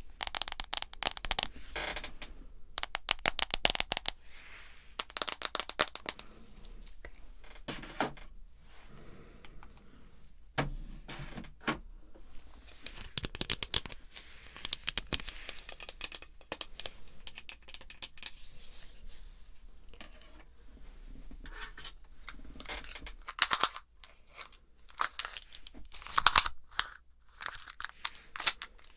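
Irregular crinkling and scratching sounds made close to the microphone as ASMR hearing-test triggers, with a few louder sharp cracks near the end.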